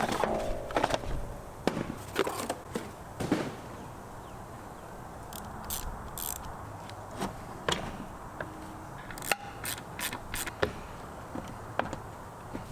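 Scattered clicks and knocks of hand tools and parts being handled during engine work, irregular, with a denser run of sharp clicks about two thirds of the way through.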